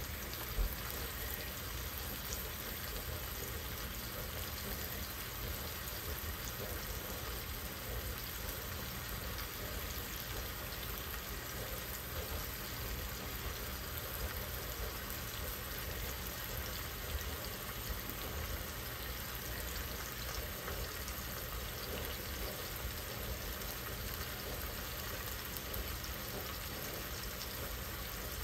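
Boneless tilapia fillets frying in butter in a pan, a steady sizzle, with one short click about half a second in.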